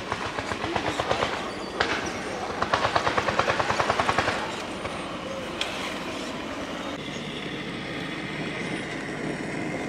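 Rhythmic mechanical chugging like a running engine, a rapid train of pulses at about seven a second, loudest from about two to four seconds in, then settling into a steadier running noise.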